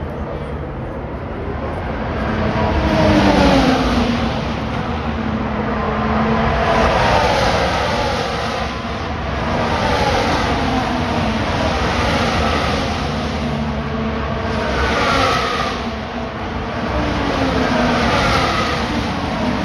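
Formula One cars passing at speed one after another, about six times, each engine note falling in pitch as it goes by.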